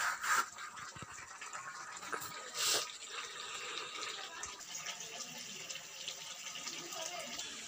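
Kadaknath chicken pieces and potatoes frying in a wok over a wood fire in the juices the meat has released, stirred with a spatula: a steady sizzle, with two louder rushes, one right at the start and one about three seconds in.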